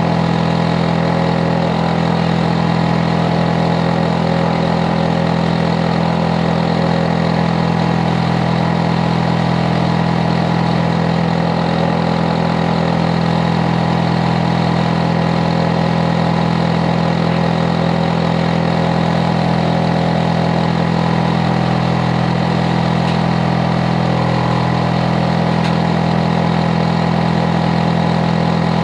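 Hitachi air-conditioner outdoor unit (compressor and fan) running loudly and steadily: a constant low hum with several fixed tones above it. It is the overly loud, never-changing running noise of a neighbour's unit.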